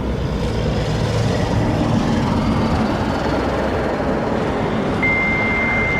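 Steady rumble of road traffic, a vehicle passing close by. About five seconds in, a single steady high radio tone begins: the first tone of the dispatch tone sequence that activates the warning sirens.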